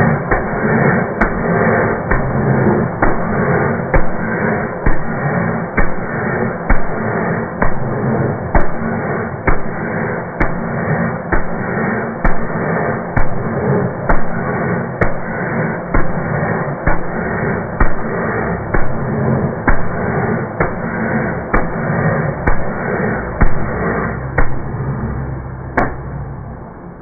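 Volvo EC210B excavator's diesel engine running during an injector test, with a sharp knock about once a second over the steady engine noise.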